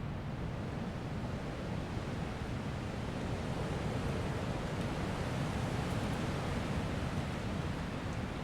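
Strong wind blowing through forest trees, a steady rushing that swells a little in the middle, with faint light ticks from twigs or leaves.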